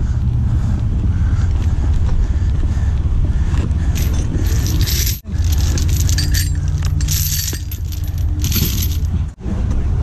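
Heavy truck engine idling with a steady low hum, while steel recovery chains clink and rattle in several bursts as they are handled. The sound cuts out abruptly twice.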